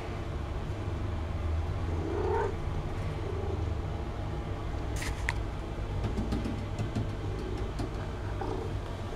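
Domestic cat purring right against the microphone while being stroked, a steady low rumble, with two sharp clicks about five seconds in.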